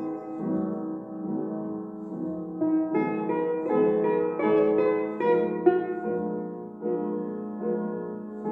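Domra played with a pick, performing a melody: held notes at first, then a quicker run of separately plucked notes from about three seconds in.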